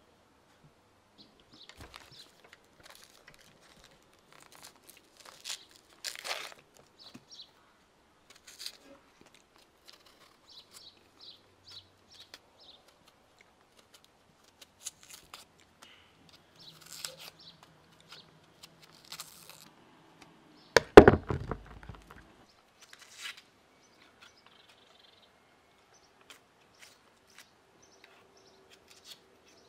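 Scattered small clicks, taps and crinkles of ingredients and utensils being handled during cooking preparation, with one loud thump about 21 seconds in.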